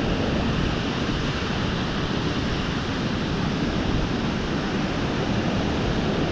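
Steady rushing of beach surf mixed with wind on the microphone.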